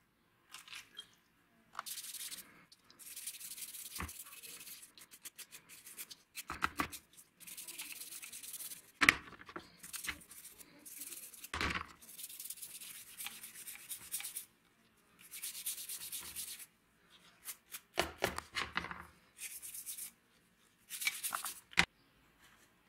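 Toothbrush scrubbing plastic plier handle grips in a tub of liquid, in hissy strokes lasting a second or two, broken by several sharp knocks.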